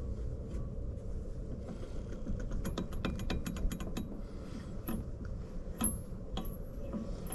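Light metallic clicking and rattling as a turbocharger's shaft is wiggled by hand, a quick run of clicks about three seconds in and a few separate clicks after. The shaft has play, and the turbo needs rebuilding.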